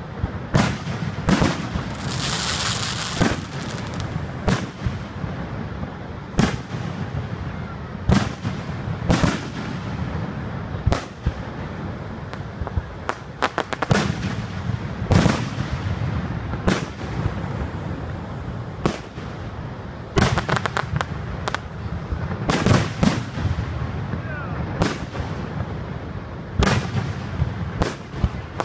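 Aerial fireworks shells bursting one after another, a sharp bang every second or two. There is a brief high hiss a couple of seconds in, and quick clusters of crackling reports about two-thirds of the way through.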